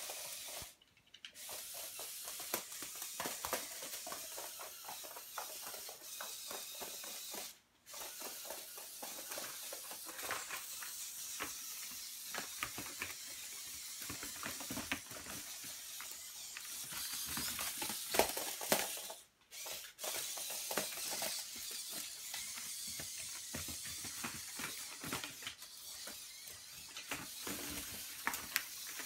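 LEGO Strider walking robot driven by LEGO medium motors, walking and climbing: a dense clatter of plastic Technic legs and linkages clicking and rattling, over a steady hiss. The sound cuts out briefly twice.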